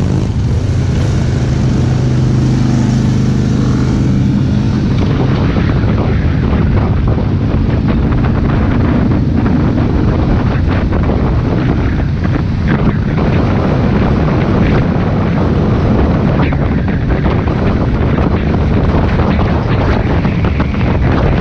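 Wind rushing over the microphone on a moving motorcycle, over the running of motorcycle engines. A steady engine note stands out for the first few seconds, then the wind noise takes over.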